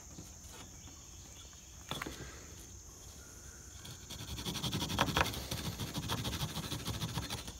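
Steady cricket trilling, with a single click about two seconds in. From a little past halfway, a fast rhythmic scraping and grinding: a hand-drill spindle twirled between the palms in the notch of a soft, degraded tulip poplar fireboard.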